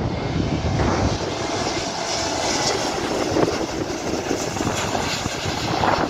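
Airbus A321neo's twin turbofan engines on final approach, a steady jet rush passing close by, strongest in the higher range about two to three seconds in.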